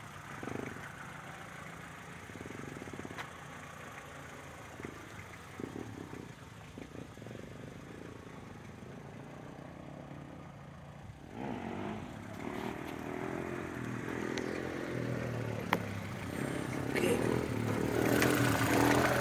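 A small motor vehicle running nearby and coming closer, getting steadily louder from a little past halfway, over the low, steady idle of a car engine.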